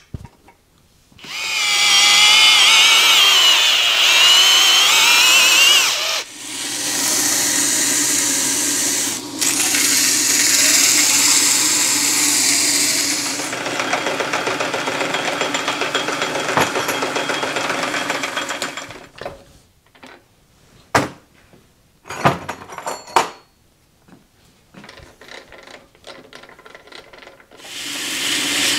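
Power drill mounted on a metal lathe's tool post drilling steel, its motor whine wavering under load for several seconds. Then a longer stretch of steady machine running as the lathe spindle turns, followed by a few sharp knocks.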